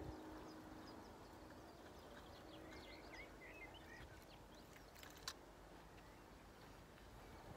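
Quiet shoreline ambience with faint bird chirps a few seconds in and a single sharp click a little past the middle. A faint steady hum fades out in the first second.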